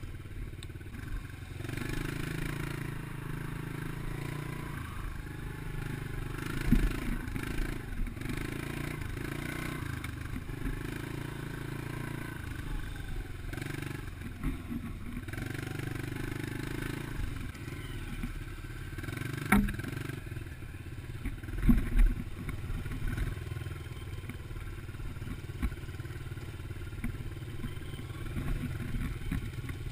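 Dirt bike engine running as it rides along a bumpy trail, its revs rising and falling every few seconds with the throttle. A few sharp knocks stand out, loudest about two-thirds of the way through.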